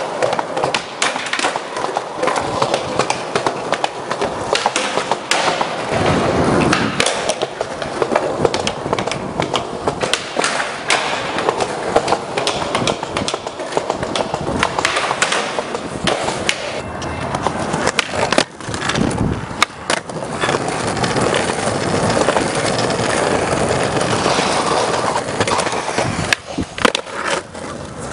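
Skateboard wheels rolling on smooth concrete, with many sharp pops, board clacks and landings of tricks.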